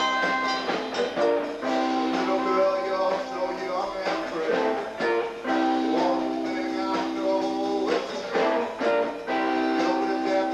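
Live rock band playing: an electric guitar's chords held for about two seconds at a time, three times over, with drum hits and busier playing in between.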